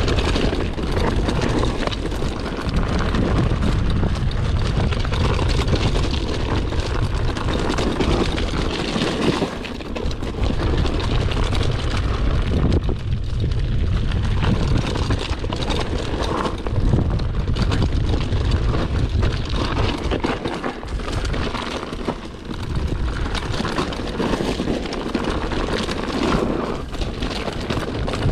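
Wind rushing over the microphone of a camera on a mountain bike riding a dirt trail, with tyre and bike rattle underneath. The noise is loud and dips briefly twice.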